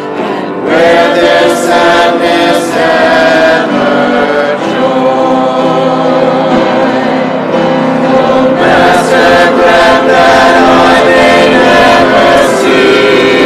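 Church choir singing a hymn.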